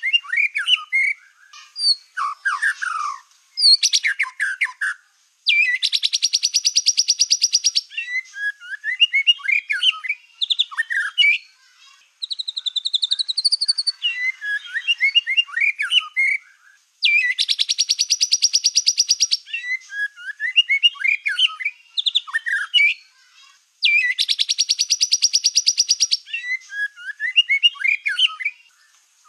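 White-rumped shama (black-tailed murai batu) singing vigorously and almost without pause: varied whistled and chattering phrases, broken three times by a long, fast trill lasting about two seconds.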